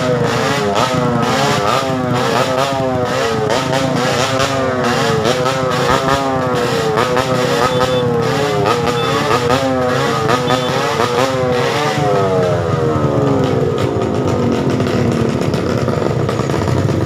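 Motorcycle engine revved over and over in quick throttle blips, its pitch climbing and dropping about twice a second. About twelve seconds in the throttle is let go, and the engine winds down over a few seconds to a lower, steady running.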